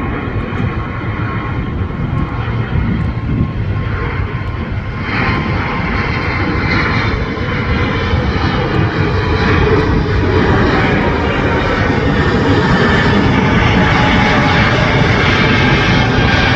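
Airbus A320 jet engines at takeoff power, a loud steady rumble that swells and brightens about five seconds in and again around ten seconds in, then holds at full volume.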